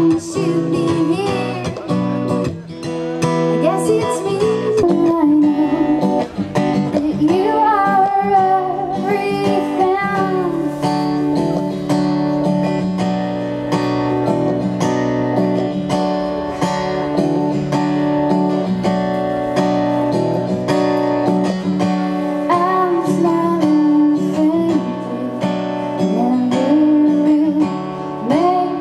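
Live acoustic guitar strummed steadily while a woman sings a melody over it in phrases.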